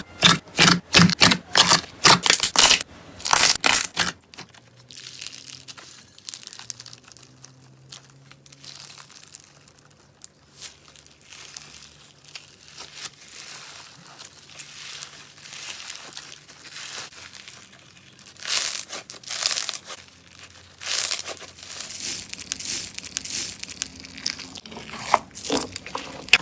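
Slime being handled and squeezed, giving rapid crackling pops at first, then softer, quieter squishing, then louder crinkly crackling again in the last third.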